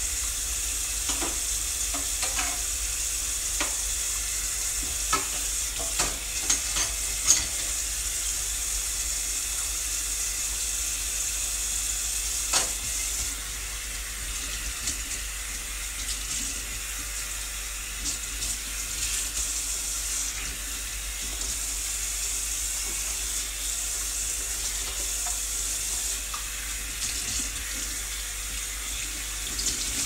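Kitchen tap running steadily into a sink, with a few sharp clinks and knocks in the first half.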